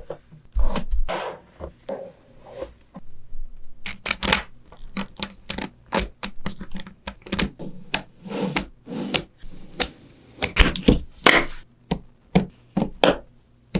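Small magnetic balls clicking and snapping against each other as they are handled and pieced together, in quick irregular clicks and short rattling runs.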